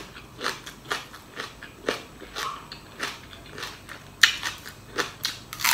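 Close-up crunchy chewing of a raw leek stalk, a short crunch about twice a second, with a sharper crack about four seconds in and a louder crunch near the end.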